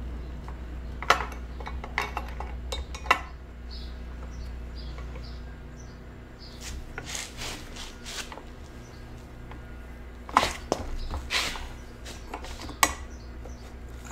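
Metal clinking and scraping of an adjustable wrench working the thin reverse-threaded locknut on a bicycle's one-piece crank as it is loosened, with several sharp metal knocks scattered through.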